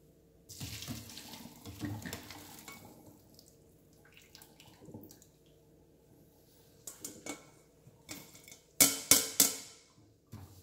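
Boiled potatoes and their hot cooking water poured from a stainless steel saucepan into a plastic colander in a steel sink, splashing for a couple of seconds. Near the end come a few loud knocks and clatters as the drained potato chunks are tipped back into the steel pan.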